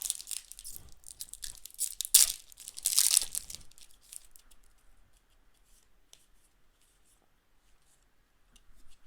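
Trading card pack packaging being torn open and crinkled by hand in several rough tears over the first few seconds, loudest about two and three seconds in, followed by faint light rustles and ticks.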